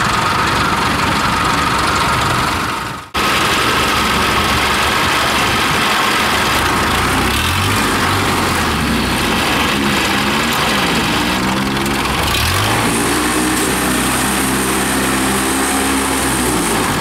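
Engine of a tracked rice-hauling carrier running close by. Its pitch rises and falls several times as it is throttled while the machine is driven, then holds steady and eases off near the end. The sound drops out briefly about three seconds in.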